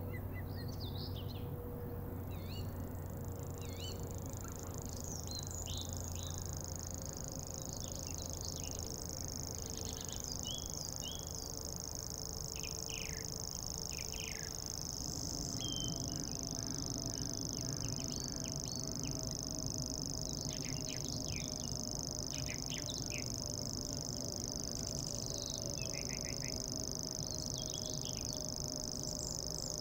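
Several small birds chirping and calling in short, scattered notes. From about two seconds in, a steady high-pitched buzz runs underneath, over a low steady hum.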